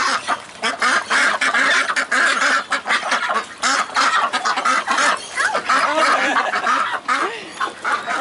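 A flock of ducks quacking together in a loud, continuous clamour of rapid, overlapping calls.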